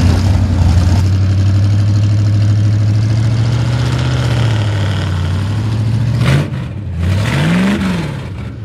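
Straight-piped engine of a 1970s Ford mud truck running loud at steady revs, easing off about six seconds in, then revving up once and dropping back down.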